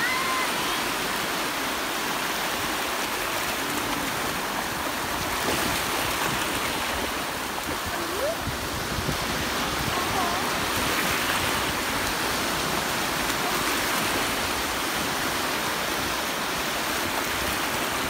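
Sea surf washing over shallow sand: a steady rush of small breaking waves and foaming water.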